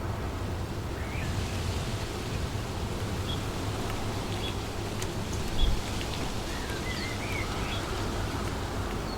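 Wind blowing steadily through trees, with a low rumble of wind on the microphone and one brief low buffet a little past halfway. Birds chirp in short bursts from about a second in.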